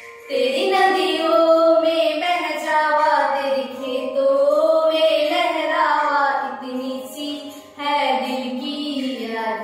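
Two young women singing a patriotic Indian song together, holding long notes that glide between pitches, with a brief breath pause near the end.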